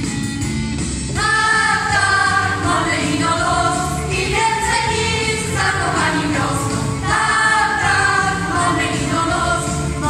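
Folk song ensemble of mostly women's voices singing in chorus with instrumental accompaniment; the voices come in about a second in and carry on in phrases.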